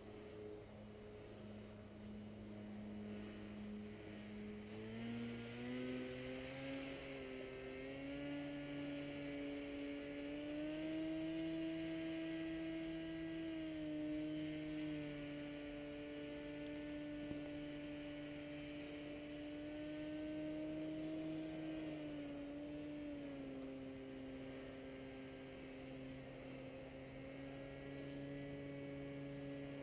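Distant paramotor (powered paraglider) engine droning steadily overhead. Its pitch rises about five seconds in, holds, and drops back a little just after twenty seconds.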